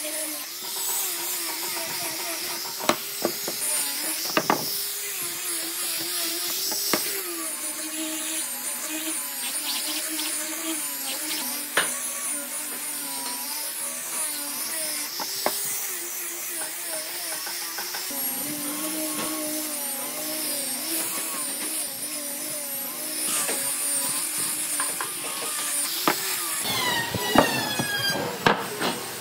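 Electric angle grinder with a sanding disc running against reclaimed railway-sleeper wood, its motor pitch wavering as it is pressed and pushed along the board, with a hiss of sanding and a few sharp knocks.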